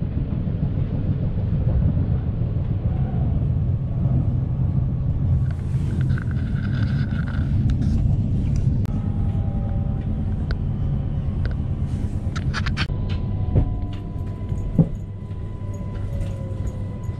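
Steady low rumble of a moving S7 S-Bahn electric commuter train, heard from inside the carriage. A few sharp clicks come near the end.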